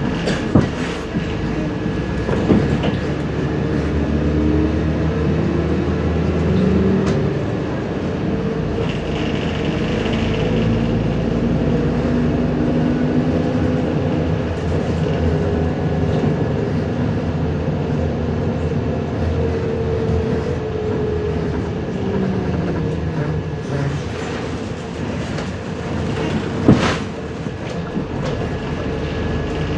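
MAZ 105.065 articulated city bus riding along, heard from inside: the diesel engine and drivetrain running, their pitch slowly rising and falling as the bus speeds up and slows, over road noise and body rattle. A few sharp knocks, the loudest near the end.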